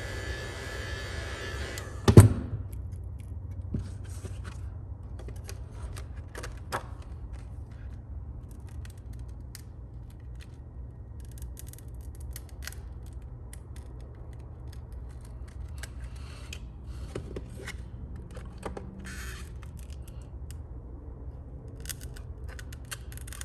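Heat gun blowing, then cut off about two seconds in with a sharp knock. After that come scattered small crackles and clicks of the adhesive tape and plastic coming apart as the phone's back glass is pried off.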